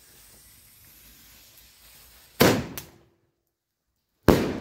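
XXL Thunder firecracker going off with a sharp, loud bang about halfway through, followed a moment later by a smaller second crack. Another loud blast starts suddenly near the end.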